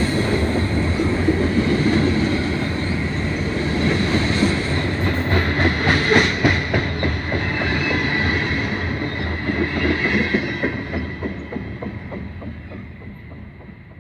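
Freight train of covered hopper cars rolling past close by: wheels rumbling and clattering over the rails, with a thin steady high ring. The sound fades away over the last few seconds as the end of the train passes.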